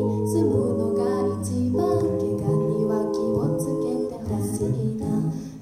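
A mixed a cappella group sings through microphones: several voices hold chords in harmony over a low bass line, in phrases about a second and a half long, with a brief drop in level near the end.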